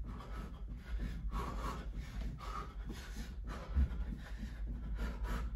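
A man breathing hard during a bodyweight exercise, with a few short exhales. There is a single low thump just before the four-second mark, over a steady low hum.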